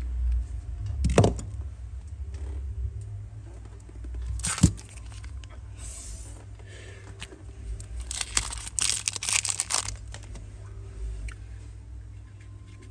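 Handling of metal Zippo lighters: two sharp knocks, about a second in and again past four seconds, then a few seconds of crackly rustling, over a steady low hum.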